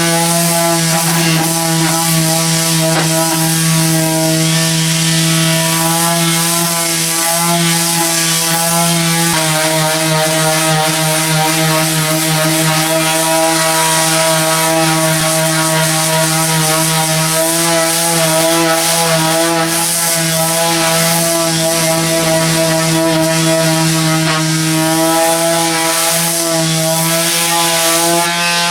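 Electric power sander running steadily at full speed, a loud even motor whine, stripping old paint from a car body.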